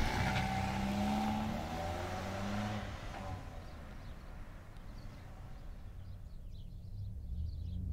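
Small hatchback car pulling away from the curb and driving off, its engine rising in pitch as it accelerates and fading away over about three seconds. A few faint high chirps near the end.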